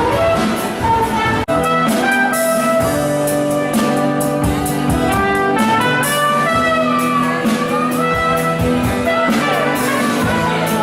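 Music with brass instruments and a steady beat, with a short drop in level about a second and a half in.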